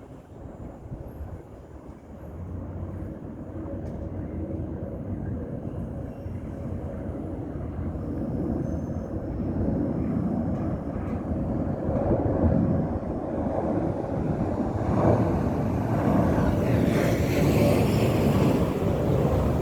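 Sukhoi Superjet 100's twin SaM146 turbofan engines on landing approach: a low jet rumble growing steadily louder as the airliner comes closer, with a high hiss and whine rising in over the last few seconds.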